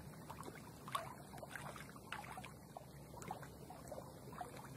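Faint water lapping and trickling around a small rowing boat on a lake, with small irregular splashes and drips, one a little louder about a second in.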